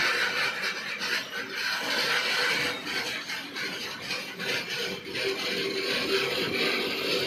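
BOXN open freight wagons rolling slowly past on the rails: a continuous rattle and scrape of steel wheels and couplings, with a faint steady squeal from about five seconds in.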